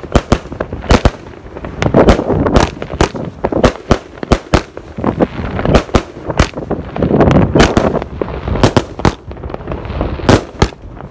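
Consumer aerial fireworks (the 'Lumberjack' item) firing shot after shot and bursting overhead: a rapid, irregular string of loud bangs, about two or three a second, with crackling between them.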